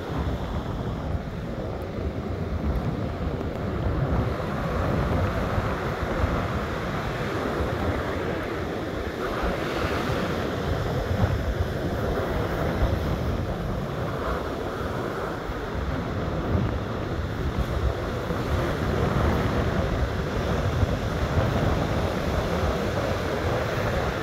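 Wind buffeting the microphone over rough surf breaking on the beach, a steady rushing noise with gusty low rumble.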